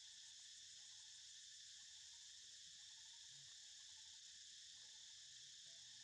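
Faint, steady high-pitched insect chorus from the surrounding forest, with no pauses.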